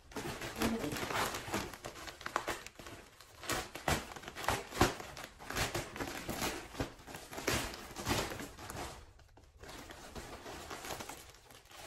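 Plastic mailer bag crinkling and rustling as it is handled and pulled open, in dense irregular crackles with a short lull about nine seconds in.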